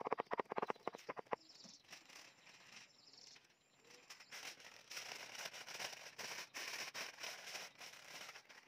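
A knife chopping rapidly on a wooden board, about a dozen quick strokes in the first second and a half. Then, from about four and a half seconds in, aluminium foil crinkling as it is folded around a fish.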